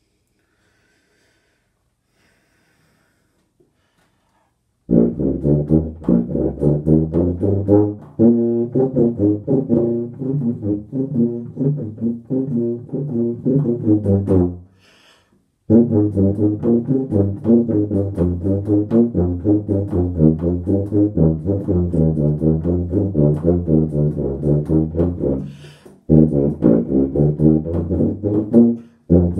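Solo tuba playing a quick passage of short, separate notes. It starts about five seconds in, after silence, and stops twice for brief breaks, the first about halfway through and the second a few seconds before the end.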